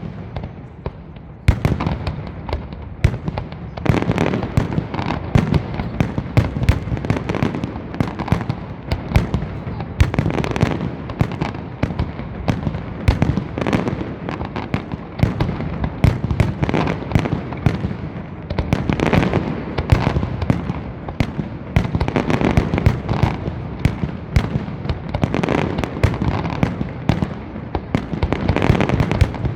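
Aerial fireworks display firing a rapid, continuous barrage of bangs and crackles, which starts up about a second and a half in and surges and eases in waves.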